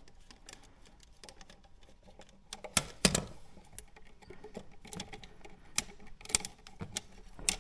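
Scattered small clicks and taps of an electrical outlet and its wires being handled, with a louder knock about three seconds in.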